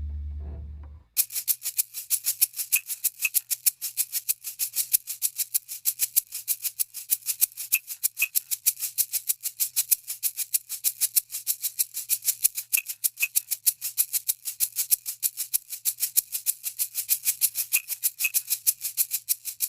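Background music: a steady shaker rhythm, about five strokes a second, with a soft high tone recurring every few seconds, starting about a second in as the previous track fades out.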